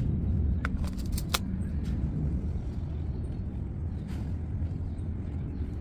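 Steady low background rumble, with a few light clicks in the first second and a half as hands handle the fabric and pins.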